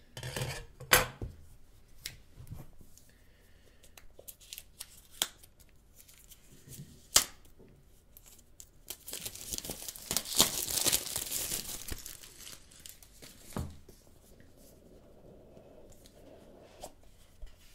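Clear plastic shrink-wrap being torn and crinkled off an iPhone 5S cardboard box, with sharp clicks and rustles of handling and a longer stretch of tearing about halfway through.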